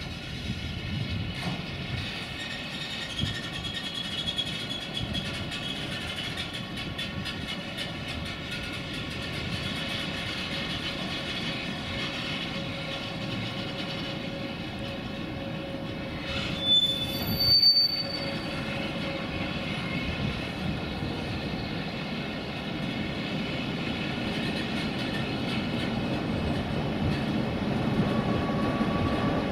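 Freight train of double-deck car-carrier wagons rolling past: a steady rumble of steel wheels on the rails with high, thin wheel squeals, loudest about seventeen seconds in.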